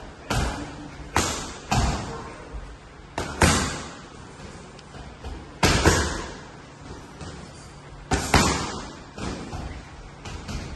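Boxing gloves smacking focus mitts, about ten punches, several thrown as quick one-two pairs a second or two apart, each hit echoing briefly in the large gym.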